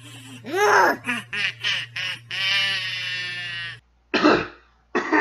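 A man's voice doing an over-the-top cartoon laugh in short bursts, ending in one long held laugh that cuts off suddenly. A single cough follows about four seconds in, and a throat-clear begins near the end.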